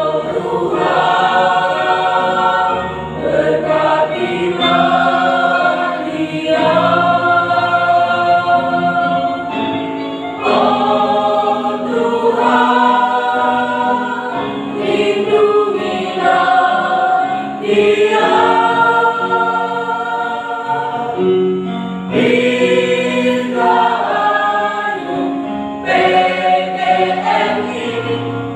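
Mixed choir of men's and women's voices singing together in harmony, in phrases a few seconds long with short breaks between them.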